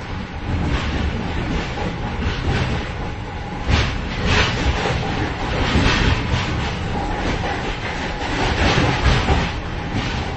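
Train vestibule between moving carriages: steady rumble of the wheels with loose metal clattering and rattling, and sharper clanks about four seconds in and again near the end.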